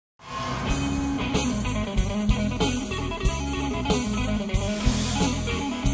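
Electric-guitar blues music with bass and drums, starting right after a moment of silence at the very beginning.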